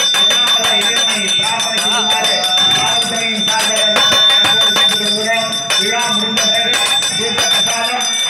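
A bell rung continuously, its ringing tone held steady throughout, over men chanting Vedic mantras.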